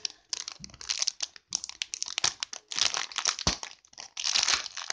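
Plastic-foil wrapper of a Pokémon card booster pack crinkling in irregular bursts as it is twisted and pulled at to tear it open. A sharp click comes about three and a half seconds in. The pack is tightly sealed and hard to open.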